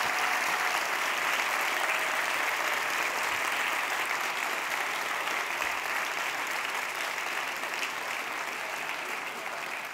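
Large audience applauding, a dense steady clatter of many hands that slowly dies down toward the end.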